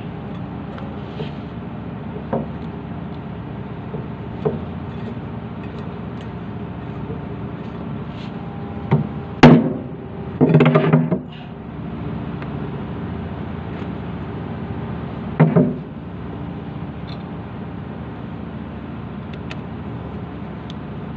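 Steady hum of a running engine, with a few loud metal knocks and clatters from an alternator being taken apart by hand and with a screwdriver. The loudest is a sharp knock about nine seconds in, with a short clatter just after and another near the middle of the second half.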